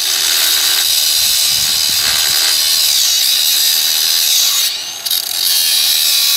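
Battery-powered angle grinder with a cutoff wheel cutting through steel rebar: a loud, steady, high grinding whine. It eases off briefly about five seconds in, then bites into the steel again.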